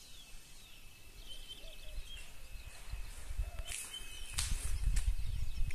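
Open-air countryside ambience: a few faint bird chirps over low wind rumble on the phone's microphone, which grows louder in the second half.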